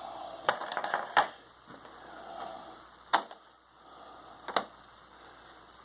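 Hand tools from a pick set being handled: a quick run of clicks and rattles about half a second in, then two single sharp clicks about a second and a half apart.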